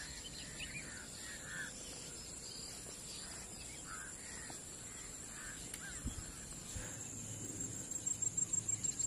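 Faint dusk chorus of birds giving scattered short calls as they settle to roost, over a steady high insect drone. A couple of low bumps come about six and seven seconds in, and near the end a rhythmic cricket chirping starts up.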